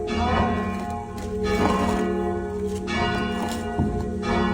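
Church bells ringing, struck one after another about every half second to a second, their tones ringing on and overlapping.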